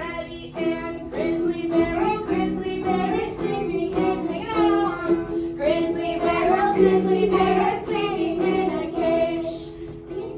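A group of young children singing a simple children's song together, with adult women's voices among them.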